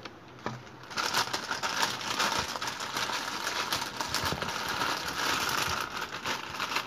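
Spiced tomato broth boiling hard in a pan, a dense crackle of popping bubbles that sets in about a second in. The broth is at a full rolling boil, ready for the noodles.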